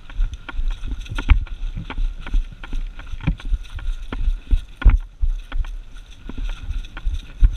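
Airsoft guns firing in irregular sharp pops and clicks, mixed with low thumps and rumble of movement and wind at a helmet-mounted camera; a few louder pops stand out about a second in, around three and five seconds in, and near the end.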